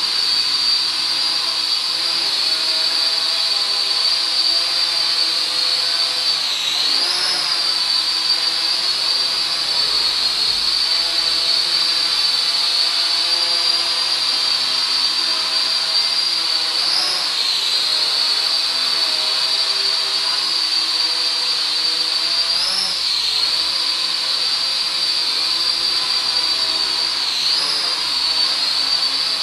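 Zero-X Pulse mini quadcopter's motors and propellers whining steadily in flight, with four brief swells in pitch as the throttle is worked.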